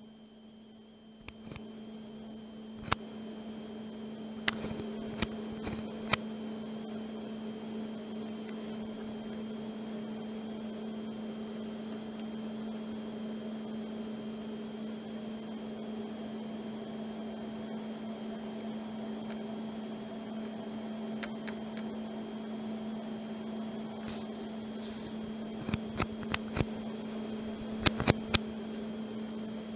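Steady electrical hum from a running Tektronix TDS350 digitizing oscilloscope, growing louder over the first few seconds. Sharp clicks of its front-panel push-buttons come several times in the first six seconds and again in a cluster near the end.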